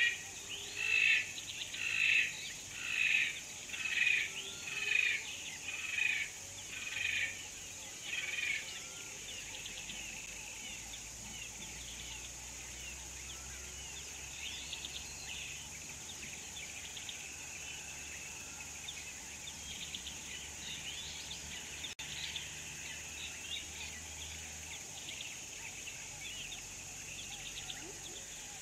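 A bird calls in a series of about nine loud notes, roughly one a second, over the first eight seconds. Quieter, scattered bird chirping follows. A steady, high-pitched insect drone runs underneath throughout.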